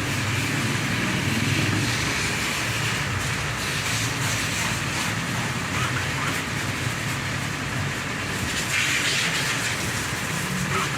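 A steady low mechanical rumble with a hiss over it, the hiss swelling briefly near the end.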